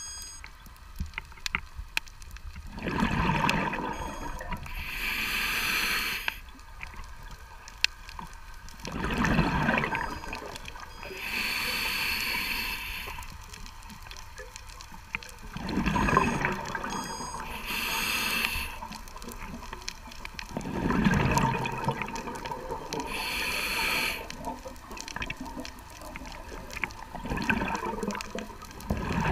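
A scuba diver breathing through a regulator, heard through an underwater camera housing. A hissing inhale alternates with a bubbling, rumbling exhale, about five breaths at a slow, even pace.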